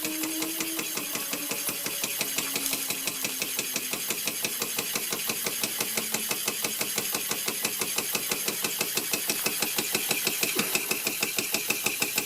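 1926 Bing 10/12/2 toy steam engine running under steam, its exhaust chuffing in a quick, even beat. A faint whine slowly drops in pitch over the first half.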